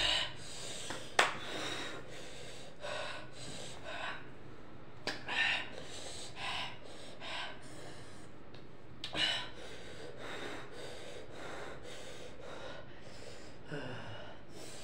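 A boy breathing hard in quick, hissing gasps and sniffs through his mouth and nose, the reaction to the burn of an extremely hot chili chip. There is a single sharp click a little over a second in.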